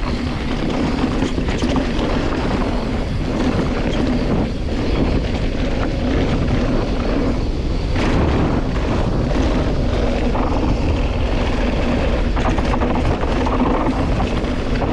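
Wind rushing over the microphone and tyres and frame rattling over loose rock as a Specialized Turbo Levo electric mountain bike descends a rocky trail, a loud continuous rush with scattered knocks and a steady low hum.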